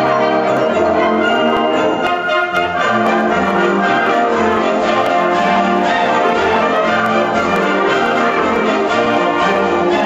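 Concert wind band (wind symphony) playing a holiday piece: flutes, clarinets, saxophones and brass together, loud and sustained.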